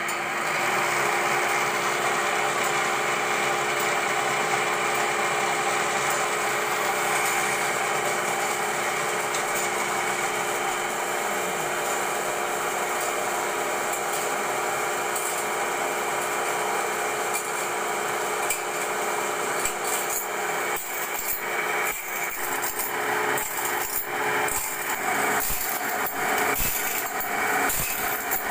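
Band saw blade sharpening machine running: the motor and abrasive grinding wheel make a steady whirring hum. About two-thirds of the way in, irregular clicks and knocks join it as the wheel works along the blade's teeth.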